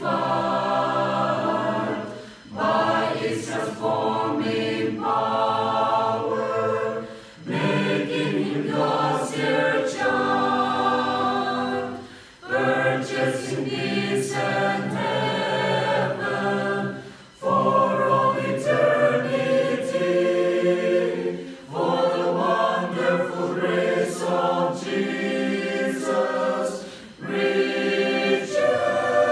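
Mixed choir of men and women singing a hymn a cappella, in sung phrases with short breaks for breath between them.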